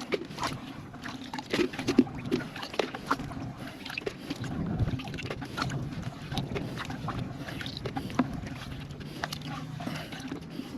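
Kayak being paddled: paddle strokes swishing and sloshing through the water, with many scattered sharp clicks and knocks.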